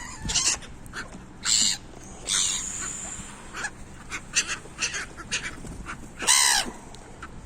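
Gulls and ducks calling as they crowd and squabble over food: a run of shrill, separate calls, the loudest and longest about six seconds in.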